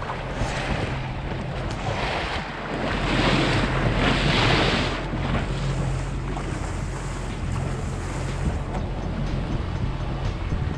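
Bow wave rushing and splashing along the hull of a boat moving at slow speed, over the steady low hum of its outboard engines, with wind buffeting the microphone. The splashing swells for a couple of seconds around the middle.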